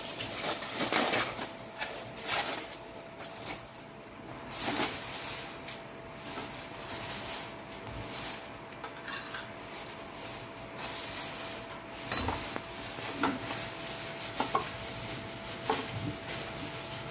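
Sliced raw pork being mixed by a plastic-gloved hand into soy-sauce marinade in a ceramic bowl: irregular wet rustling and handling, with a few light knocks of the bowl or utensils in the second half.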